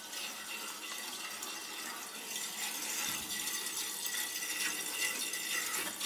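Water rushing steadily through the copper supply piping of a gas water heater as the tank refills.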